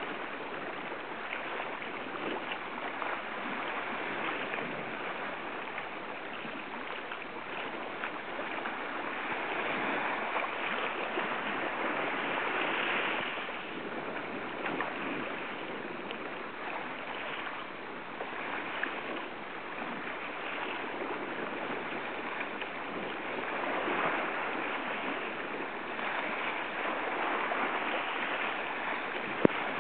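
Sea waves washing over and lapping around a low rock at the water's edge. The wash swells and eases every several seconds and is loudest when a swell covers the rock about halfway through. A single sharp click comes right at the end.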